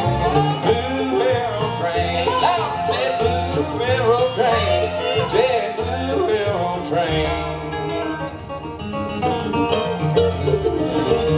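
Live acoustic bluegrass band playing: fiddle, mandolin, upright bass, two acoustic guitars and dobro, with a steady bass pulse under a lead melody that slides between notes.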